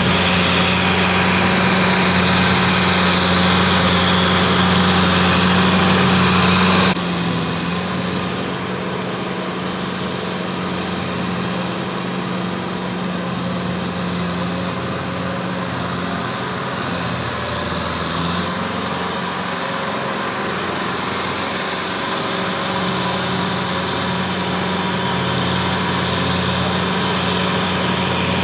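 Kubota farm tractor's diesel engine running steadily as it pulls a rotary tiller through a flooded rice paddy. The sound drops suddenly about seven seconds in and grows slowly louder again toward the end.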